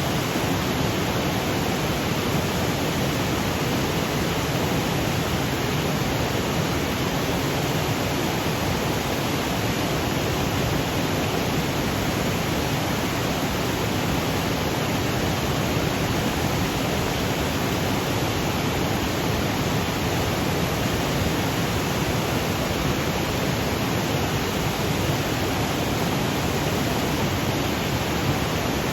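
Waterfall cascading over granite boulders: a steady, even rush of falling water without change.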